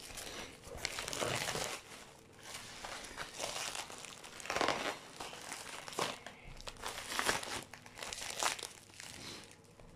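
Black plastic bag wrapping crinkling and rustling as it is handled and cut away from a cardboard box with a knife, in irregular louder bursts.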